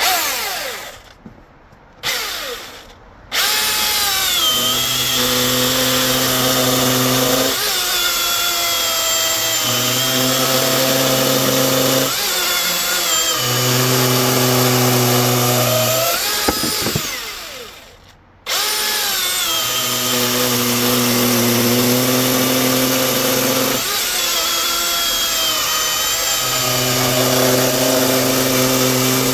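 Milwaukee M18 dual-battery electric chainsaw fitted with a Husqvarna C83 3/8 full-chisel chain: two short trigger blips, then running and cutting hardwood, with a low steady hum under load in repeated cuts of a couple of seconds each and a brief stop about halfway through. The chain is running loose, which the owner heard as chattering.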